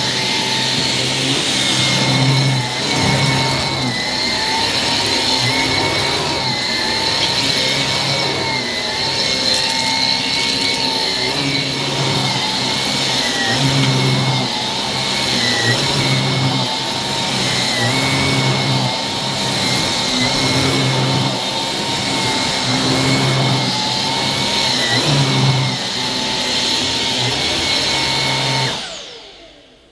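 Miele Duoflex HX1 cordless stick vacuum running on thick Saxony plush carpet with its electric brush head. The motor whine is steady, and a lower hum swells and drops about every two seconds as the head is pushed back and forth. Near the end the vacuum is switched off and winds down.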